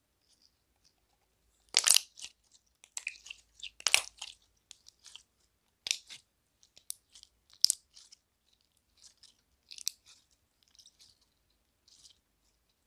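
Slime being squeezed and kneaded by hand, giving irregular sticky crackles and pops, loudest about 2 and 4 seconds in.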